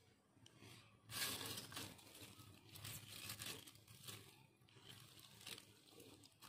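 A cat eating homemade wet food: faint, irregular chewing and mouth noises in soft bursts about a second apart.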